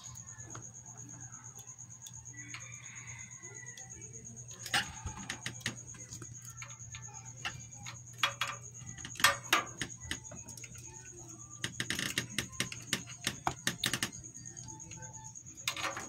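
Irregular clicks and taps of multimeter test leads and wires being handled against a microwave oven transformer's terminals, in scattered ones and twos and then a quick run of them near the end. Under them are a steady low hum and a faint steady high whine.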